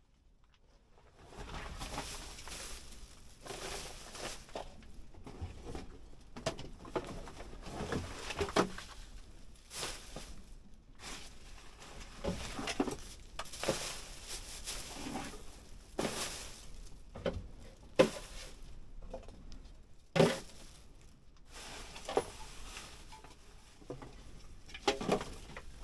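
Irregular rustling, scraping and knocking of household clutter being handled and moved during a house clean-out, with two sharper knocks about 18 and 20 seconds in.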